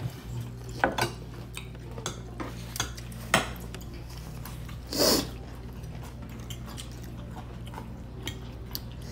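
Metal cutlery clicking against a ceramic dinner plate, a few sharp clicks in the first few seconds and fainter ones near the end as a steak is cut, over a steady low hum. About five seconds in comes a short rustling burst from a paper napkin at the mouth.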